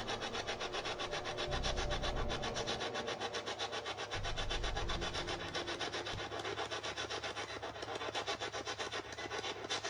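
Spirit box (ghost box radio) sweeping rapidly through stations: fast, evenly chopped static, with brief low fragments of sound caught in the sweep.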